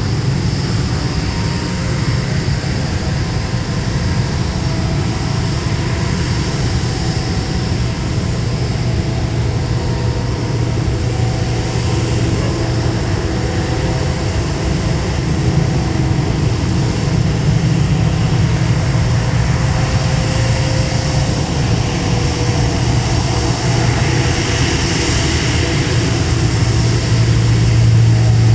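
Jet engines of a Lion Air Airbus A330-900neo (Rolls-Royce Trent 7000 turbofans) running steadily, with a low hum under a high whine, growing a little louder near the end.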